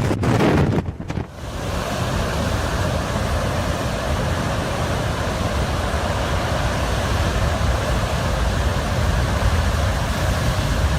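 Storm wind and heavy sea: a louder rush in the first second or so that cuts off, then a steady rushing noise with a deep rumble underneath.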